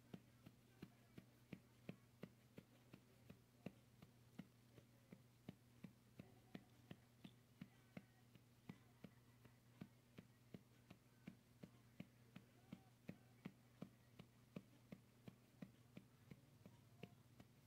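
Faint, even pats of a hand on a one-month-old baby's back, about two to three a second, given to bring up a burp after breastfeeding.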